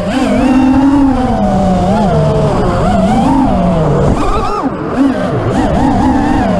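FPV racing quadcopter's motors and propellers whining, the pitch rising and falling with the throttle. About four seconds in the pitch jumps sharply and then cuts back for a moment as the drone brushes through a gate banner, before the motors pick up again.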